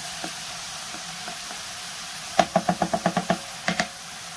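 Onion frying in oil in a frying pan, a steady sizzle, with a quick run of about eight knocks of a utensil against the pan about halfway through, then two more.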